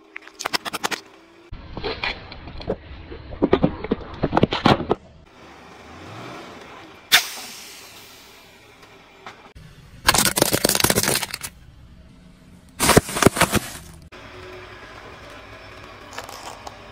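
Car tyre rolling over and crushing small plastic objects: several bouts of cracking and crunching plastic, with one sharp pop about seven seconds in.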